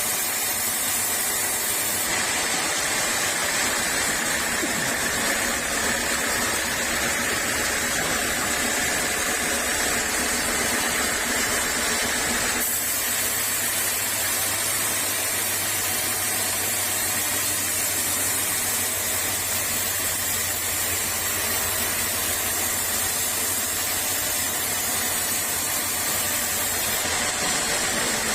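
Sawmill saw running with a steady hissing noise, its sound shifting abruptly about two seconds in and again near the middle.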